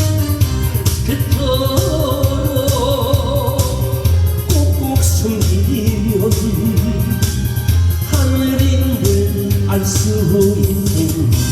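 Loud backing music with a steady drum beat, a heavy bass line and a melody line wandering over it, with no sung words.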